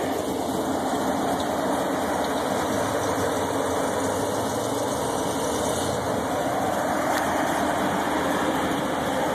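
Toyota rock crawler's engine idling steadily at close range.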